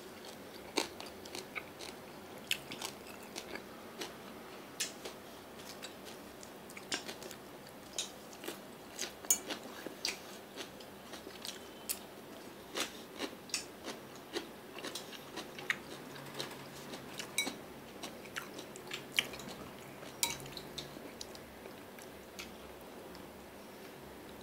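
Someone eating close to the microphone: scattered, irregular crisp crunches and clicks of chewing, a soft one every second or so.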